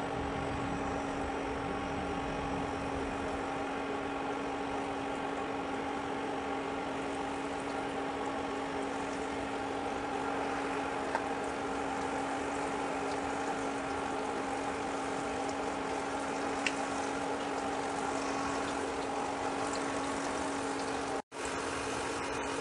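Chicken pieces frying in hot oil in a steel pan: a steady sizzle over a constant hum from the induction cooktop. The sound cuts out briefly near the end.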